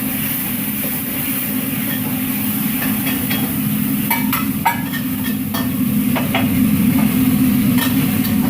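Steady roar of a commercial wok station, its high-pressure burner and extraction running, with metal clinks of a utensil against the wok from about three seconds in.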